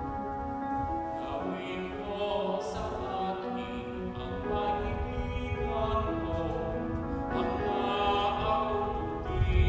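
Offertory hymn at Mass: slow singing with instrumental accompaniment, in long held notes.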